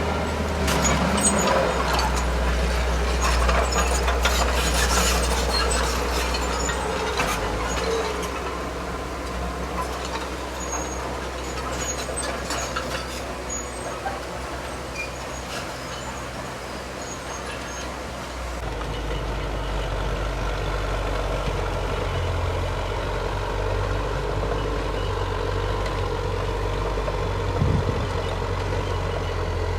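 Heavy diesel earthmoving machinery running, with metal clanking and rattling over the first dozen seconds. The engine note then settles into a steady low drone, with a single thump near the end.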